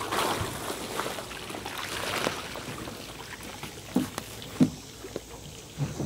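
A small rowboat's hull scraping and rustling over grass as it is flipped and shoved toward the water, with a few hollow knocks in the second half.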